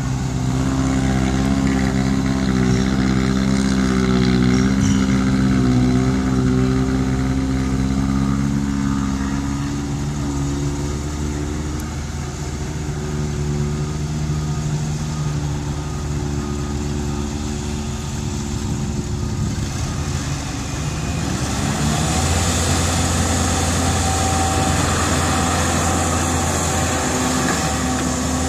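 Diesel engines of a Cat E120B tracked excavator and six-wheel dump trucks running, their pitch shifting up and down. About twenty-two seconds in the sound changes to a stronger, steadier engine note as the excavator digs.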